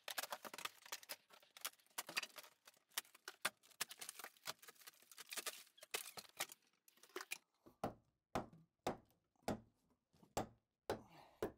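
Demolition of a bathroom wall and ceiling: a quick, dense clatter of cracking and falling drywall pieces, then steady heavy knocks about two a second, from about seven seconds in.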